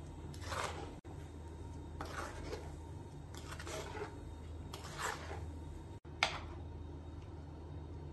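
A spoon stirring and scraping a thick yogurt curry in an earthenware clay pot: short soft scrapes about once a second, with one sharper knock against the pot about six seconds in, over a steady low hum.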